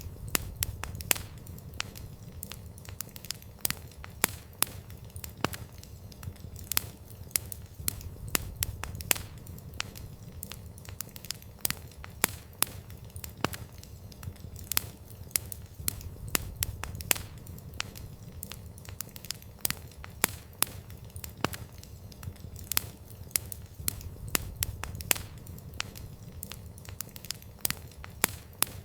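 Wood fire crackling: irregular sharp pops and snaps, several a second, over a low steady rumble of the flames.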